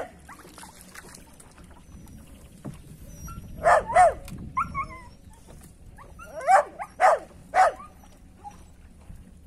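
A dog barking: two barks about four seconds in, then three more around seven seconds.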